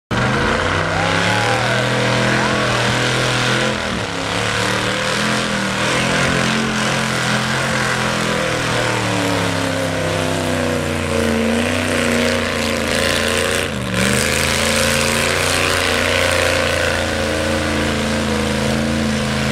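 Lifted Ford pickup mud truck's engine running hard and revving as it churns through deep mud. The engine pitch rises and falls, and the revs drop briefly about four seconds in and again around fourteen seconds.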